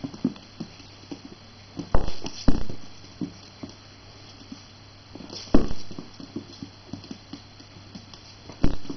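Jack Russell puppy's claws pattering and skittering on a hardwood floor during rough play, with four louder knocks: two close together about two seconds in, one midway and one near the end.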